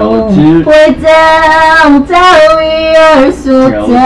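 A man singing drawn-out notes without clear words, with two long held notes in the middle.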